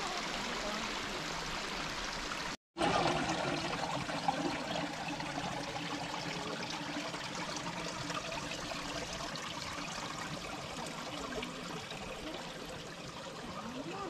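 Shallow stream water running and trickling over rock slabs and between boulders, a steady rush. The sound cuts out completely for a moment about three seconds in.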